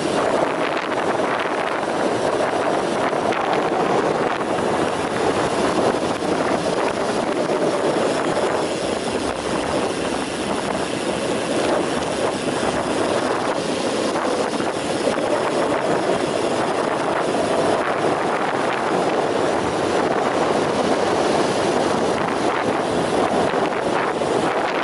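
Steady wind rushing over the microphone of a road cyclist's point-of-view camera during a fast downhill run.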